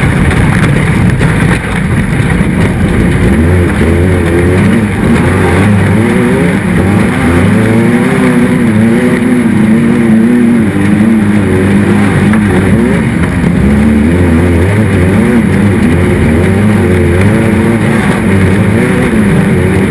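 Race car engine running loud and hard, its pitch rising and falling again and again as the revs change.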